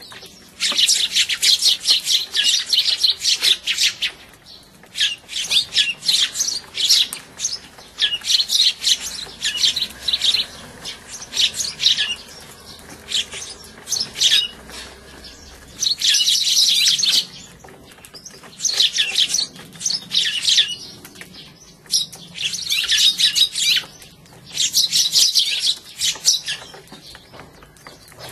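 A flock of Eurasian tree sparrows chirping in bouts of rapid, dense, high chirps, each a second or two long with short lulls between: the squabbling calls of sparrows fighting over seed at a feeder.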